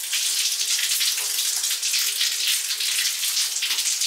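Tap water running and splashing into a basin as a flat wet mop pad is rinsed in it, the mop worked back and forth through the stream with a steady uneven splashing.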